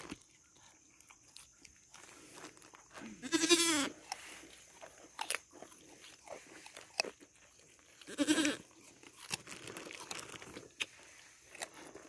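A goat bleats twice in a wavering voice, loudly about three seconds in and again about eight seconds in. Between the bleats come short sharp crunches of goats chewing baby carrots.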